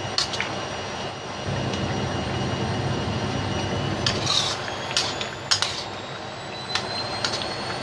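Spatula scraping and knocking against a steel wok as chicken curry is stirred, with several sharp clicks scattered through, over a steady rushing noise of the stove.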